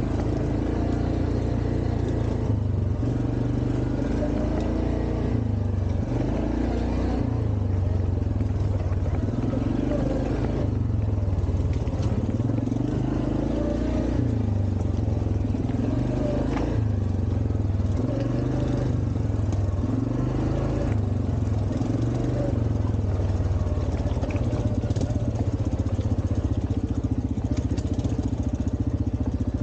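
ATV engine running under way, its pitch rising and falling every few seconds as the throttle is worked, with a few sharp knocks mixed in.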